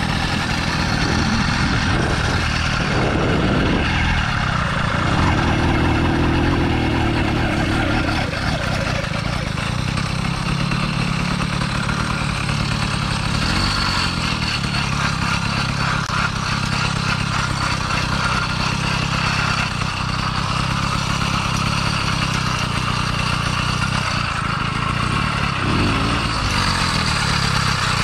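80cc two-stroke motorized-bicycle kit engine running while the bike is ridden, its pitch rising and falling with the throttle. The owner says it is running badly and not winding out, which he puts down to its intake and carburetor.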